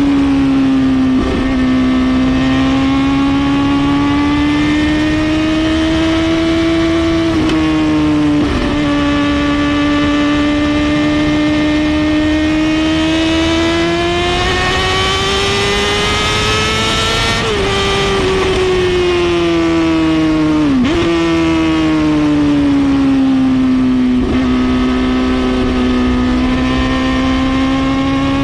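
Suzuki GSX-R750 inline-four motorcycle engine through a full Brock's exhaust system, running loud at high revs. Its pitch slowly rises and falls, with several brief sharp dips in pitch.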